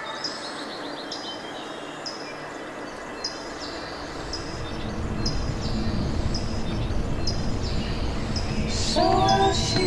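Tropical forest ambience: a bird repeats a short high chirp about once a second over a steady rushing noise that grows louder about halfway through. Singing voices start near the end.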